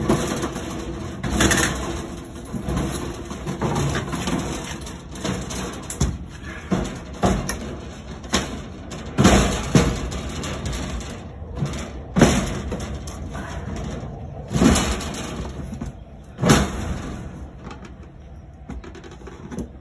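Irregular metal clanks and knocks, about a dozen spread a second or more apart, the loudest near the middle and toward the end, from the steel seat panels and safety-lock parts of a swinging-boat ride being handled and worked on.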